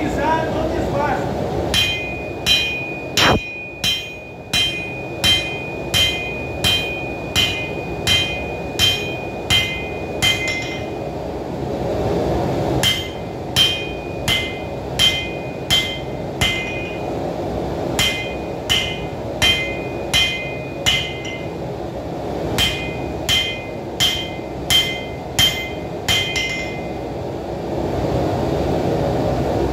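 Hand hammer striking red-hot steel on an anvil, about two blows a second, each with a clear ringing tone. The blows come in four runs with short pauses between them. The smith is drawing out and thinning the edge of a knife blade.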